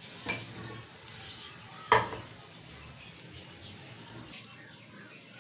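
Aluminium frying pan and a metal spoon clattering on a gas stove. A light clink comes near the start and a sharp knock about two seconds in, followed by a few faint ticks and scrapes.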